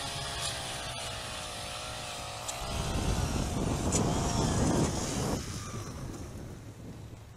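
Power ice auger's small motor running as it drills through lake ice. It gets louder and rougher for a few seconds around the middle, then fades away near the end.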